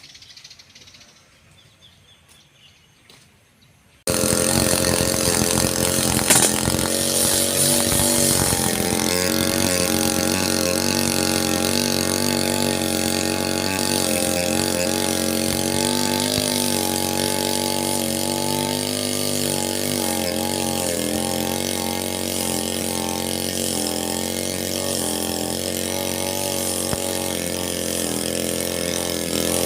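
Quiet for about four seconds, then a Falcon 328 two-stroke brush cutter comes in suddenly, running steadily, its engine note wavering up and down as it cuts grass.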